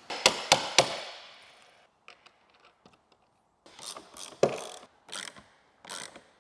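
A few sharp metallic clicks, then a ratcheting hand tool worked in short strokes, about one stroke every two-thirds of a second, on the threaded rods of a wooden frame.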